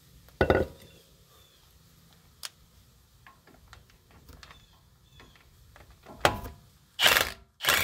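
Work and handling noise close to the microphone: scattered light clicks of tools and parts, with a few short, loud rustling bursts about half a second in and twice in the last second or so, as a sleeve brushes over it.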